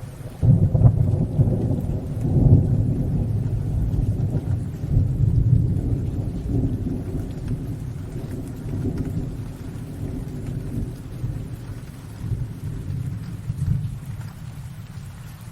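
Rolling thunder in a rainstorm: a deep rumble breaks out suddenly about half a second in, swells again a few times and slowly fades, over steady rain.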